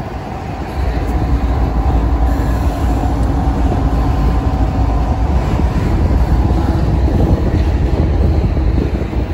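Canadian Pacific double-stack intermodal freight train rolling past, with a mid-train diesel locomotive going by among the container cars: a steady, loud low rumble of engine and wheels on rail. A faint steady whine rides over the rumble in the first few seconds.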